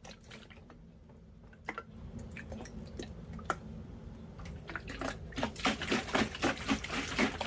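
Light clicks, taps and small knocks of objects being handled, sparse at first and growing busier in the second half, over a faint low hum.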